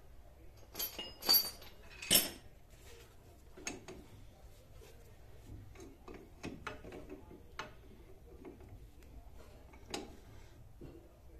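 Metal hand tool clinking and clicking against a car's front brake caliper as its bolts are tightened: three loud metallic clanks about one to two seconds in, then lighter irregular clicks and taps.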